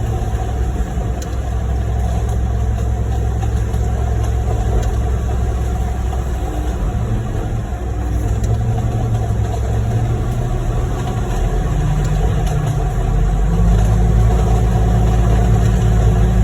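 Heavy diesel engines of a concrete mixer truck and a concrete pump truck running steadily while concrete is discharged and pumped. About twelve seconds in, the engine note steps up in pitch and gets a little louder.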